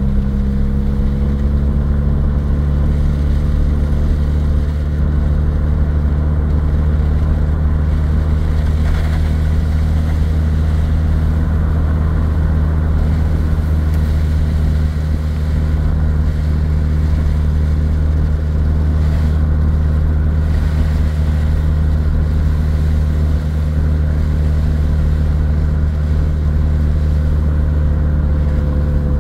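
Car engine and tyres at a steady cruising speed on a wet road, heard from inside the cabin: a loud, even drone that holds one pitch, over a light road hiss.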